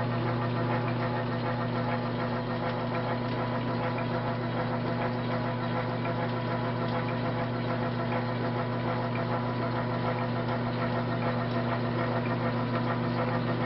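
South Bend lathe running with a steady electric hum while a die cuts a quarter-20 thread and feeds itself onto the work.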